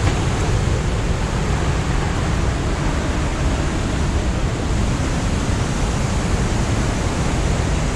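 The Rhine Falls' water rushing, a loud, steady, even noise with a deep rumble underneath.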